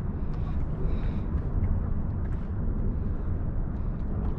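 Steady low rumble of wind buffeting an action-camera microphone over open water, with a few faint ticks.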